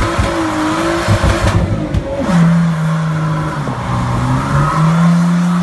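Nissan Skyline R33 GTST's turbocharged RB25 inline-six at high revs during a burnout, the rear tyres spinning and squealing in place. About two seconds in the revs drop sharply, then hold and climb slowly again.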